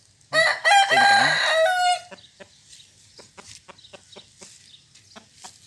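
A fighting rooster crows once, loudly, for about a second and a half just after the start. A run of short, quieter clucks follows, about three or four a second.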